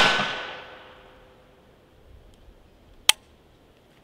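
Glock 19X 9mm pistol fired outdoors: the echo of a shot fired just before dies away over about a second, then a single sharp shot about three seconds in. The shots come at uneven intervals because the pistol, held one-handed with a weak grip, keeps malfunctioning.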